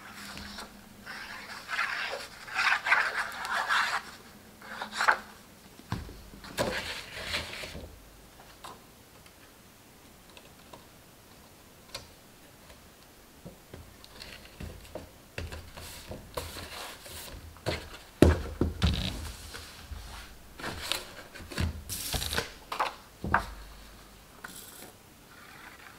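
Cardstock being handled: paper rustling, scraping and rubbing in irregular bursts as a glued panel is pressed onto the side of a cardstock box, with a few soft knocks.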